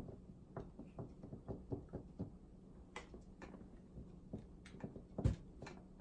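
Faint, irregular clicks and light knocks from plastic soda bottles being handled, with one louder thump a little after five seconds in.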